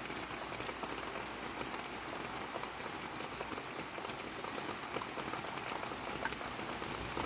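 Heavy rain falling: a steady hiss with scattered drops ticking.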